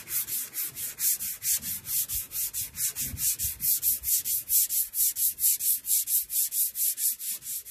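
Wooden boat half-hull being hand-sanded with a strip of abrasive belt pulled quickly back and forth, shaping its waterlines. It makes a steady rasping rhythm of about five to six strokes a second.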